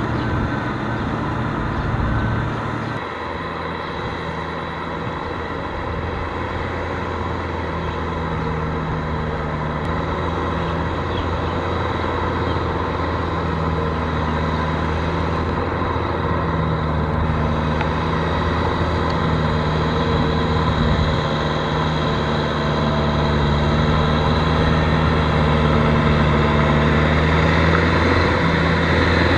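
Kubota M6040SU tractor's diesel engine running steadily under load as it pulls a rotary tiller through flooded mud, growing slowly louder toward the end.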